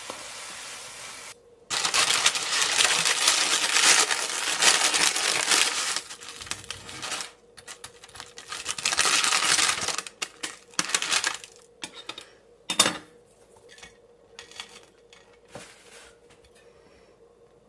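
Scrambled egg sizzling briefly in a pan, then loud crunching and crackling in long stretches as a knife saws through the crisp fried bread-crumb crust of a hot dog on baking paper. One sharp click about two-thirds through, then a few light taps of utensils on a plate.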